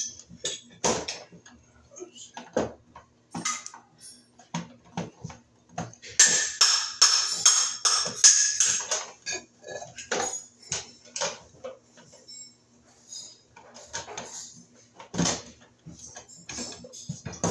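Sheet-metal end cover of an electric baseboard heater being worked onto the thermostat section by hand: a run of clicks, taps and light metal rattling, with a longer stretch of scraping about six to nine seconds in, over a faint low hum.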